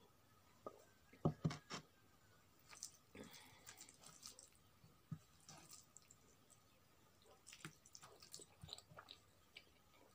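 Faint eating sounds from a person eating rice and curry by hand: chewing and mouth clicks, with fingers working rice on the plate. The sharpest clicks come about a second and a half in.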